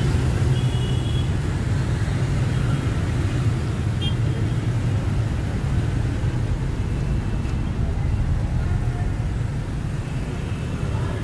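Steady city street traffic: a continuous low rumble of passing vehicles, with a brief faint high tone near the start.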